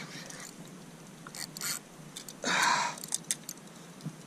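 Fishing gear being handled and stowed on a plastic sit-on kayak: scattered light clicks and knocks, with a brief scraping rustle about two and a half seconds in.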